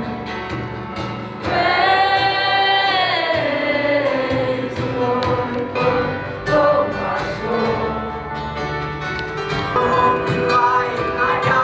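Worship music: voices singing over a band's steady low accompaniment, with one long held note about a second and a half in that slides down in pitch.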